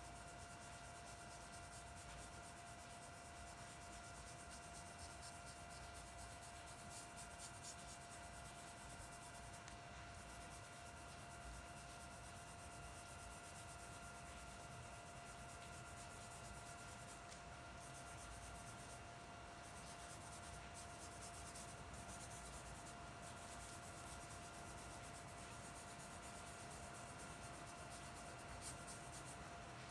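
Faint, soft rubbing of a brush stroking charcoal across drawing paper, under a steady high electrical hum.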